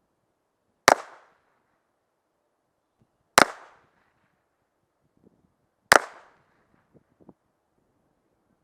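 Browning Buck Mark .22 LR semi-automatic pistol fired three times in slow, even succession, about two and a half seconds apart, each crack dying away quickly.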